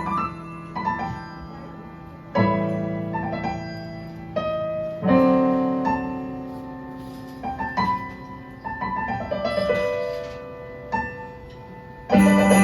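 Electronic keyboard in a piano voice playing slow chords, each one struck and left to ring and fade, with no drums under it. Near the end the band comes back in much louder.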